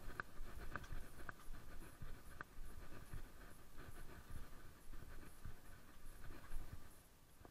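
Faint scratching and rustling with soft thumps of footsteps, and a pit bull panting at times.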